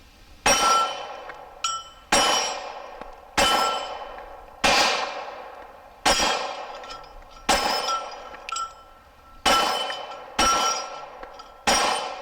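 Nine slow, evenly paced 9mm shots from a Glock 26 pistol, each followed by the ringing of a struck steel plate target.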